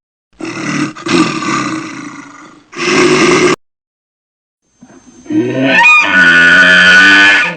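Big cat roaring: two rough roars, the second short. After a pause a different pitched sound starts, glides up and then holds a steady tone near the end.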